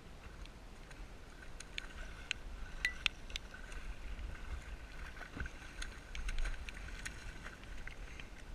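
Hooked fish thrashing and splashing at the surface beside a small boat, with scattered sharp clicks, a faint steady high whine and wind rumbling on the microphone.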